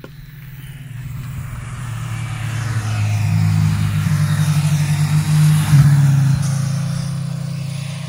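Motorcycles, a red sport bike in the lead, riding past on the road. Their engine note grows louder, is loudest about five to six seconds in, then fades away.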